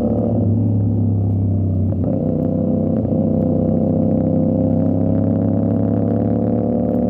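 CFMOTO 450SR's parallel-twin engine with a 270-degree crank, heard through an aftermarket Avionic exhaust, running steadily under way. The note dips briefly twice, around two and three seconds in, then holds steady.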